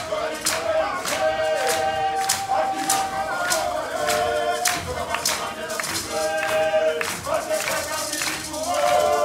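A group of women singing together live, over a steady percussive beat of about two strikes a second.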